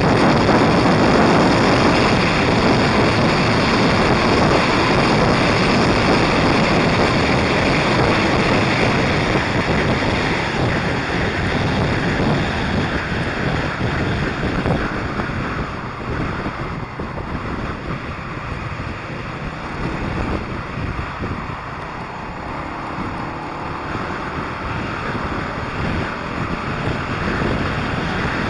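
Wind rushing over the microphone of a camera held out beside a moving motorcycle, with the bike's engine running under it. The rush is loud at first and eases somewhat past the middle.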